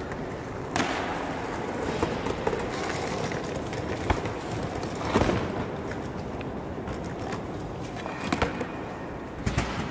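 Hard-shell plastic equipment cases being handled on a concrete floor: a steady rattle of case wheels rolling from about a second in, broken by sharp knocks and clacks as cases, handles and latches are set down and bumped, the loudest about five seconds in and a cluster near the end.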